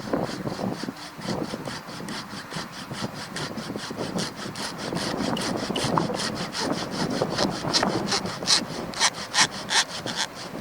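Hand saw cutting through wood in quick, even strokes, about four a second, with the strokes getting louder near the end.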